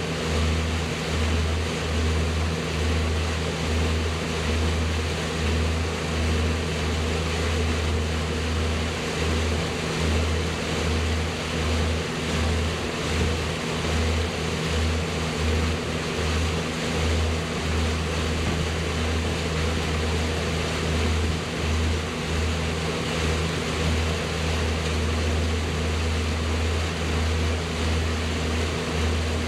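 A boat's motor running steadily while under way, with a constant hiss of rushing water and air and an uneven low rumble of wind buffeting the microphone.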